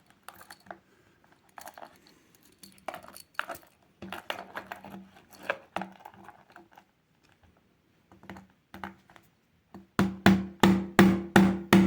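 Small hammer tapping a pin back into a stainless steel watch bracelet link to rejoin it. A few light scattered taps and clicks, then near the end a run of firmer, evenly spaced taps about three a second, each ringing briefly, as the pin is driven home.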